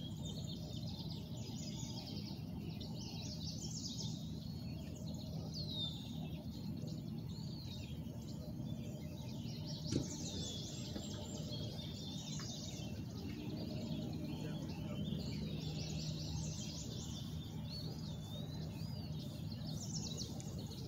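Songbirds chirping and singing in short whistled phrases, on and off throughout, over a steady low background rumble. A single sharp click comes about halfway through.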